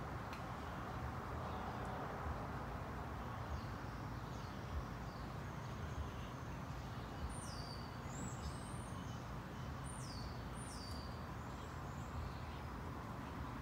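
Small birds chirping: a run of short, high chirps that drop quickly in pitch, mostly in the second half, over steady outdoor background noise.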